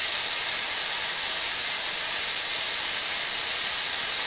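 Steam locomotive No. 461, standing still, hissing steam steadily from low at the front around its cylinders.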